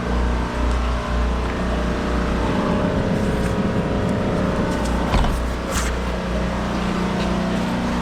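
Car engine and road noise heard from inside the cabin while driving: a steady low hum. A short knock and a click come a little after five seconds in.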